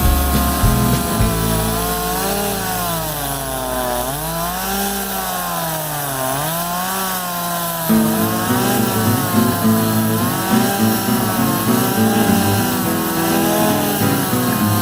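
Stihl MS260 Pro two-stroke chainsaw cutting wood, its engine pitch dipping under load and rising again several times. Background music plays underneath.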